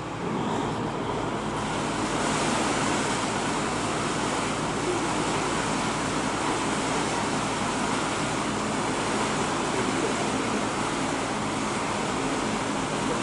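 Water churning and rushing from an inland cargo barge's propeller wash in a boat lift's trough: a steady rushing hiss that swells in over the first couple of seconds and then holds, over a faint low engine hum.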